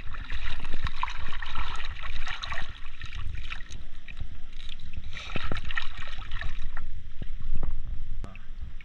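Shallow seawater splashing and sloshing as hands work a speared octopus in it, with scattered small clicks and knocks.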